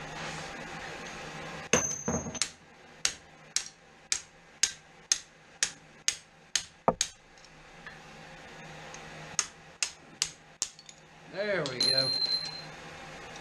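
Hand hammer striking hot steel on an anvil, bending a knife blank into a curve. About a dozen sharp ringing blows come two to the second, then a short pause and four more quick strikes.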